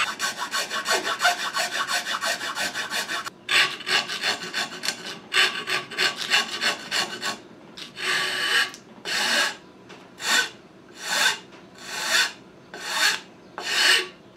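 Hand files rasping on a rifle stock. A small round file makes rapid short strokes with a couple of brief pauses, then a large flat file takes slower, longer strokes, about one a second.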